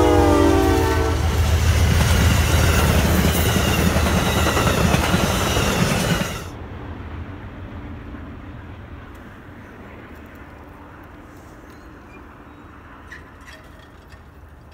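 Amtrak passenger train passing close at speed. The horn's last note falls slightly in pitch as the locomotive moves away and ends about a second in. The loud clatter and rumble of the cars on the rails cuts off sharply about six seconds in as the last car passes, leaving a fading rumble of the train going away.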